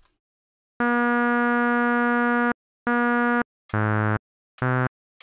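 Ruby software synthesizer, a single sawtooth oscillator through a resonant filter, playing four separate notes: a long held note about a second in, a short one at the same pitch, then two shorter, lower notes that sound duller.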